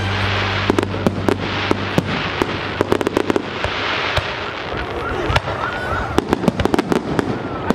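Aerial fireworks going off: a rapid, irregular run of sharp bangs and pops that goes on through the whole stretch. Background music fades out in the first second.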